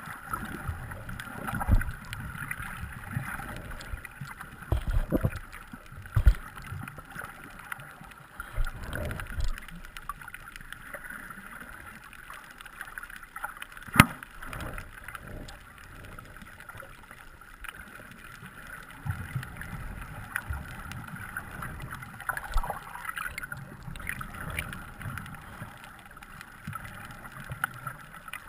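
Underwater sound through a waterproof camera housing: low water rumbling and uneven muffled knocks as the swimmer moves. One sharp click comes about halfway through.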